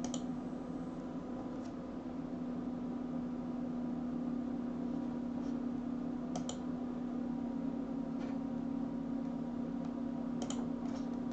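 A few computer mouse clicks, some single and some in quick pairs, spread through the stretch over a steady low hum.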